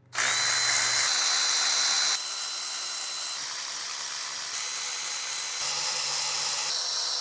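Cordless ratchet's motor whirring steadily as it runs out the 10 mm intake manifold bolts, starting suddenly, with abrupt shifts in level about every second.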